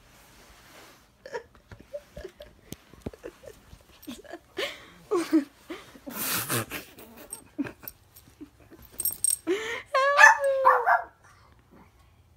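Small black fluffy dog vocalizing at close range: short whines and grumbles, a breathy snuffle in the middle, and a louder drawn-out whine with a wavering pitch near the end.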